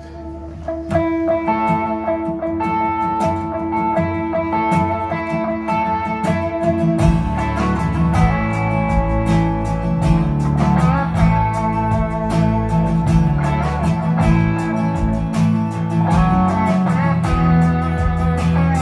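Live country band playing the instrumental intro of a song, led by guitar. The bass and drums come in fuller about seven seconds in.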